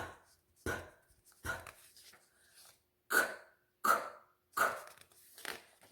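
A person voicing isolated Spanish consonant sounds for a phonics lesson: three short breathy "p" puffs, then three sharper "k" bursts for the letter Q, each about 0.7 s apart.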